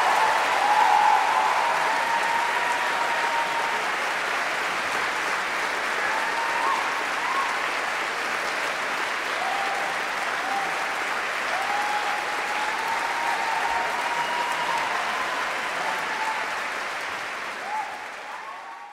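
Concert audience applauding steadily, with a few voices calling out over the clapping; the applause fades out at the very end.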